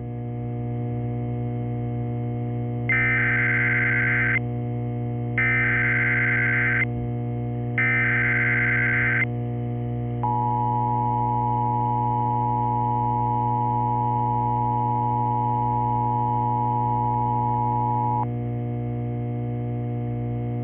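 Emergency Alert System tones. Three SAME header data bursts, each a buzzing screech about a second and a half long, are followed by the steady two-tone EAS attention signal, which holds for about eight seconds and then cuts off. A steady low hum runs underneath throughout.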